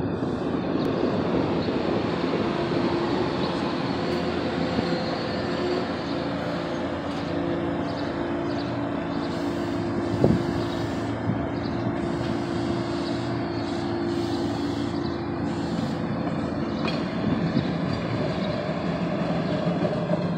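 SEPTA light-rail trolley passing through a street grade crossing: the running noise of steel wheels on rail and the car's motors, with a steady hum for most of the pass. A single sharp clunk comes about ten seconds in, as the car goes by the camera.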